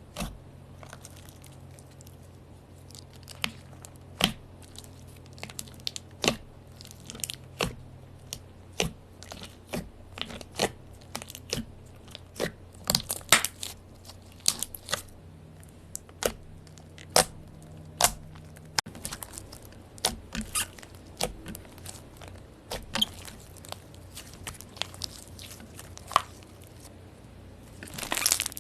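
Slime being squeezed and poked by hand, giving irregular sharp clicks and pops, a few a second, that come thicker in the middle.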